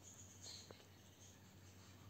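Near silence: room tone with a faint steady low hum, a faint brief hiss about half a second in and a small click just after.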